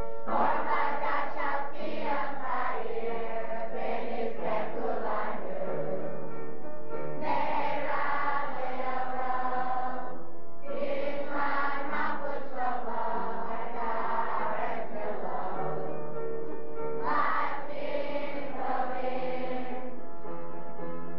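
A large group singing a song together in chorus. The phrases last several seconds each, with short breaks between them.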